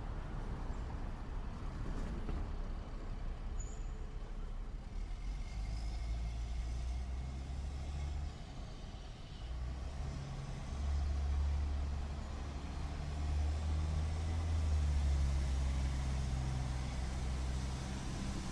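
City street traffic at night: a steady wash of street noise with the deep engine rumble of heavy vehicles, which grows louder about halfway through.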